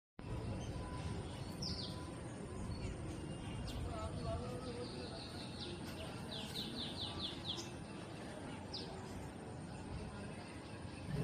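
Small bird chirping over a steady outdoor background rumble and hiss: a single high chirp, then two quick runs of about five short descending notes each, then one more chirp.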